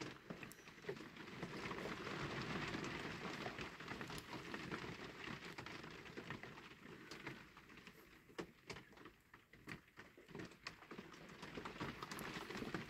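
Faint handling noise from fingers working the rear of a small diecast toy car: a soft rubbing hiss in the first few seconds, then scattered small clicks and taps.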